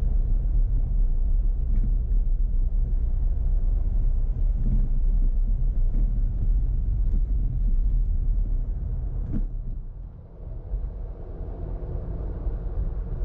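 Car driving, a steady low rumble of road and engine noise with a few faint clicks. The rumble eases about ten seconds in.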